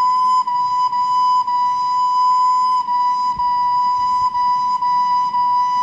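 Soprano recorder playing a string of tongued notes all on one pitch, C, each note joined to the next by only a short break from the tongue. It is a tonguing demonstration on a single note.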